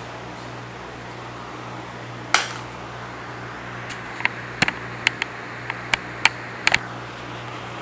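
Steady low electrical hum, with one sharp knock a couple of seconds in, then a quick run of about ten short, sharp clicks and taps near the end.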